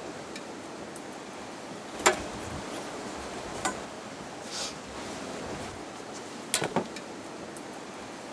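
Tools knocking and clinking on the rear suspension as the air strut is removed: a sharp knock about two seconds in, another a little later, and a quick cluster of three near the end, over a steady hiss.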